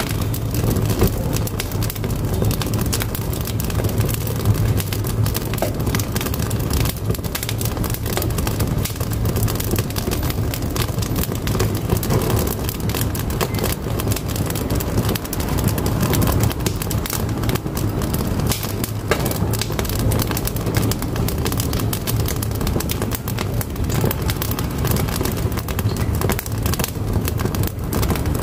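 Firewood burning in a wood-burning cookstove, crackling and popping constantly and irregularly over a steady low rumble of the fire.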